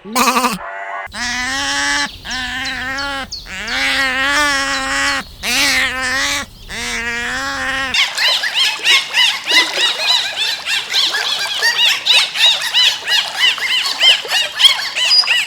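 Five or six long, wavering bleats, each about a second long. About eight seconds in, they give way to a dense chorus of short, high-pitched bird chirps, several a second.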